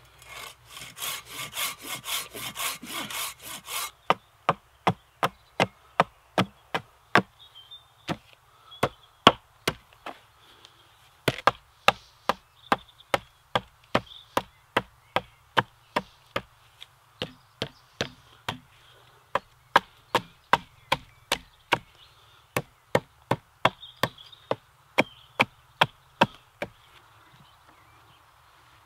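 Folding pruning saw (Silky Bigboy 2000) rasping back and forth through a branch for the first few seconds. Then a small hatchet (Hultafors Ekelund) chops repeatedly into the end of a pole on a wooden stump, sharp knocks about two a second with brief pauses, stopping shortly before the end.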